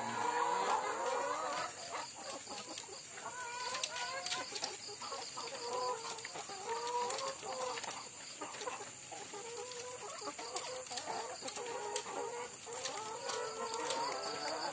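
Laying hens clucking in a battery cage: short, repeated calls through the whole stretch.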